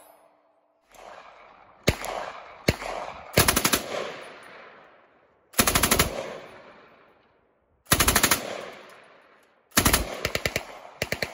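After two single shots, a PKM belt-fed machine gun fires five short bursts of several rapid rounds each, each burst trailing off in a long echo.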